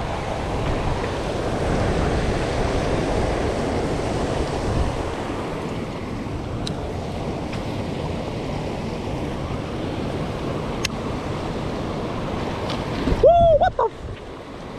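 Water rushing steadily over a concrete spillway and rocks, with wind buffeting the microphone. About thirteen seconds in comes a short, loud yelp.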